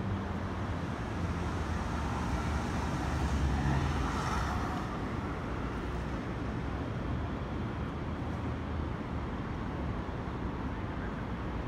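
Steady city traffic rumble, swelling briefly about four seconds in.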